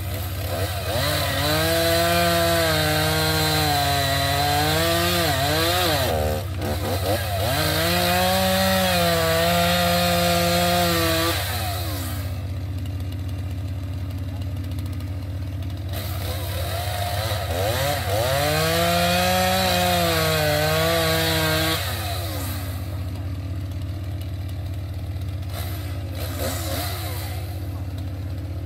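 Stihl two-stroke chainsaw cutting into a large tree trunk: revved hard three times for four to five seconds each, its pitch sagging and recovering as the chain bites into the wood, and dropping back to idle for several seconds between cuts.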